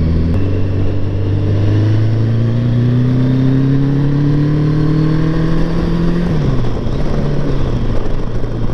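Kawasaki GTR 1000 motorcycle's inline-four engine pulling under throttle while riding, its pitch rising slowly, then falling quickly about six seconds in and holding steady after, over a wash of road and wind noise.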